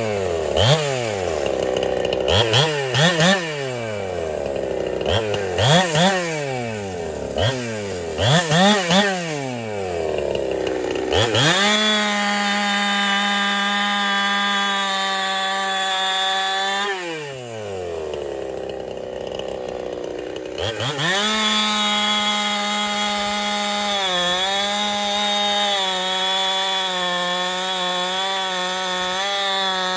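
Ported Holtzfforma 372 two-stroke chainsaw, a Husqvarna 372 clone still being broken in, blipped up and down on the throttle a dozen or so times, then held at high revs for several seconds. It drops back briefly, then climbs and holds high revs again with a couple of small dips.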